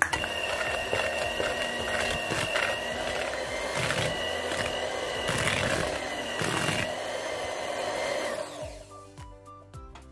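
Electric hand mixer running steadily, beating cake batter in a plastic bowl, with a few sharp knocks along the way. It is switched off about eight and a half seconds in, leaving background music.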